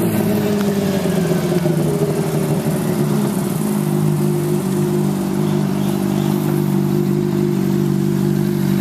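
Sport motorcycle engine running at low revs as the bike rolls slowly up. The engine note dips a little over the first few seconds, then holds steady.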